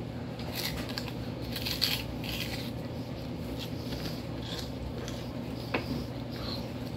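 A man biting into and chewing a whole raw onion: irregular short crisp crunches, with a sharp click near the end, over a steady low hum.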